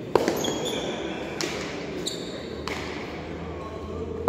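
Hard pelota ball struck by bare hands and cracking off the frontón walls and floor during a rally: a loud crack just after the start, then a run of sharp knocks roughly half a second to a second and a half apart, the last near the end. A steady crowd murmur sits underneath.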